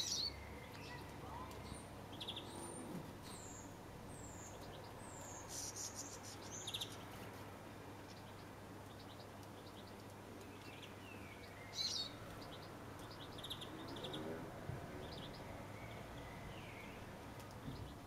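Small songbirds calling and twittering: scattered short high chirps and thin down-slurred notes, with a louder sharp call near the start and another about twelve seconds in.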